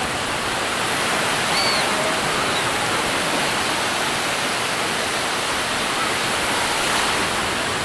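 Small waves on Lake Erie washing onto a sandy beach: a steady, even rush of surf.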